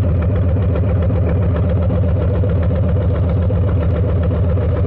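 Harley-Davidson Low Rider S's 117 Milwaukee-Eight V-twin running loud and steady at an even pitch through a Two Brothers 2-into-1 exhaust.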